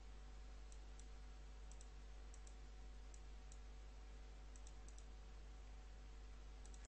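Faint computer mouse clicks, about a dozen short ticks in ones and pairs, over a steady low electrical hum.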